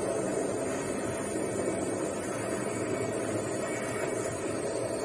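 Gas torch flame burning with a steady, even rushing noise.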